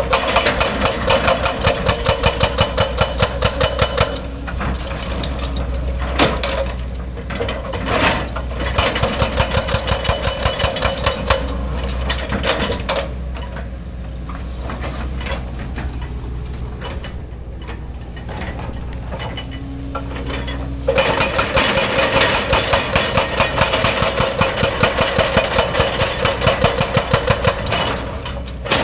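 Excavator-mounted hydraulic breaker hammering rock in long runs of rapid, even blows, with the excavator's diesel engine running steadily underneath. The hammering stops for several seconds midway, leaving only the engine, then starts again.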